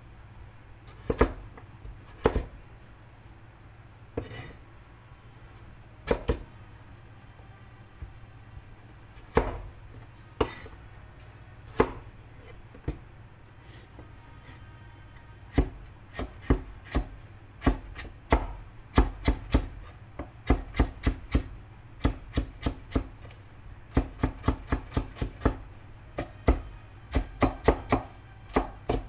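Knife chopping food on a cutting board. A few single chops come a second or more apart, then from about halfway a quick run of chops, several a second.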